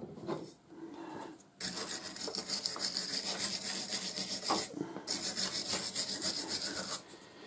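A stiff brush scrubbing back and forth over the metal end cap of a lathe live centre to clean it, in quick rasping strokes. The scrubbing starts about a second and a half in, pauses briefly near the middle and stops shortly before the end.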